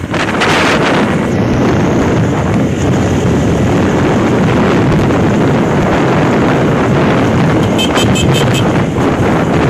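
Wind buffeting the microphone of a phone held by a passenger on a moving motorcycle, a loud steady rush with road and engine noise beneath it. A short run of quick high beeps comes near the end.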